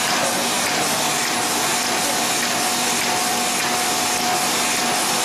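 NJP-series automatic capsule filling machine running: a steady hiss and hum with a faint, regular cycling beat.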